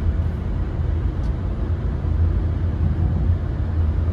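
Steady low rumble of road and engine noise inside a car's cabin, cruising at highway speed.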